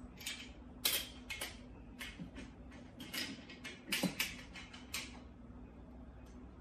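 SX-10 slingshot grip parts handled and fitted together: a run of small clicks and taps, thinning out after about five seconds, over a faint steady hum.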